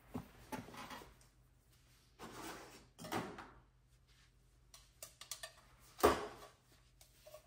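Desk drawers being opened and shut and rummaged through during a search for a cotton ball: a scatter of knocks, clicks and rustles, the loudest knock about six seconds in.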